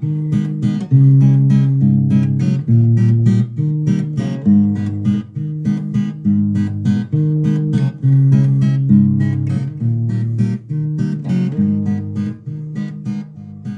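Acoustic guitar strummed in a steady rhythm, chords changing every second or so, dying away at the end.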